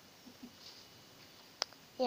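A quiet pause with a single short, sharp click about one and a half seconds in.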